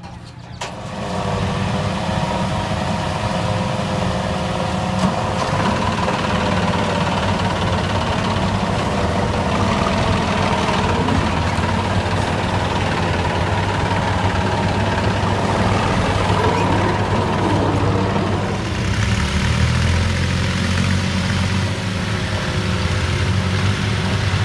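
Massey Ferguson tractor's diesel engine running steadily, heard close up from the driver's seat, with other tractors running alongside. The engine note shifts lower about three quarters of the way through.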